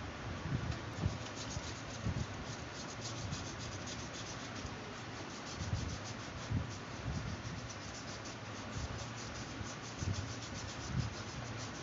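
Black marker rubbing across a plastic bottle in many quick short strokes, with soft bumps as the bottle is shifted in the hand, over a steady hiss.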